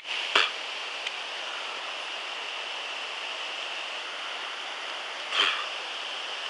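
Steady rush of flowing river water, with two brief louder noises, one about half a second in and one about a second before the end.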